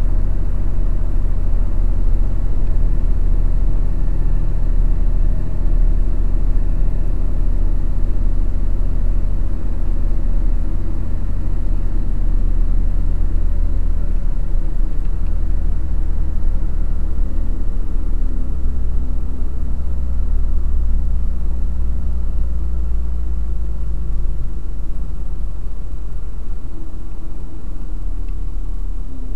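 Truck engine running while driving, heard from inside the cab as a steady low drone. Its note shifts lower about halfway through.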